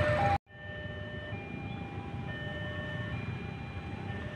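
A train's horn, several notes at once, is cut off abruptly a fraction of a second in. It gives way to a quieter steady rumble of background noise with faint tones that alternate in pitch about once a second.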